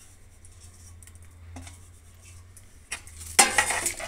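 A few light clicks of a steel spoon as soaked rice is scraped from a steel bowl, then, about three and a half seconds in, louder clattering and scraping of the spoon stirring the rice into watery masala in a pressure cooker.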